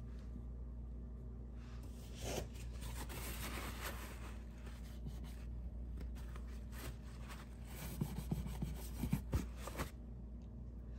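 Angled paintbrush rubbing paint onto a ridged textured wall, a scratchy swishing of the bristles, with a few light knocks near the end over a steady low hum.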